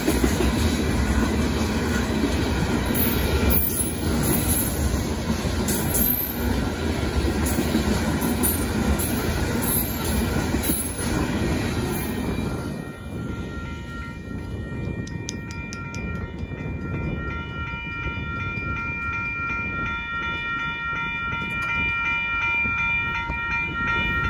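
Loaded hopper cars of a Union Pacific gravel train rolling over a grade crossing, a heavy rumble with wheel clicks and clanks. About halfway through the train's end passes and the rumble drops away, leaving a steady ringing from the crossing signal bell.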